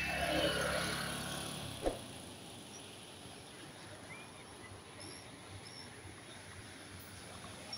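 A passing vehicle fades away over the first two seconds, with a sharp knock near the end. After that comes quiet rural outdoor ambience: a steady high-pitched drone and a few faint bird chirps.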